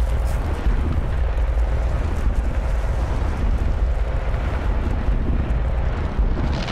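A loud, steady deep rumble with a rushing noise over it, with no clear rhythm or pitch apart from a faint steady hum.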